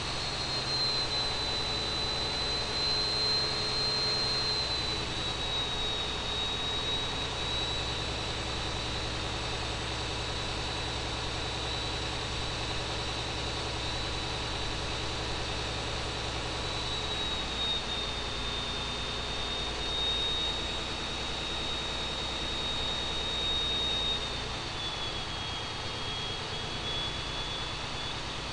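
John Deere 8.1-litre inline-six marine diesel running under dyno load, its speed easing down in steps from about 1,360 to 1,090 rpm. A steady high whine rides over the engine and drops in pitch at each step, about three times.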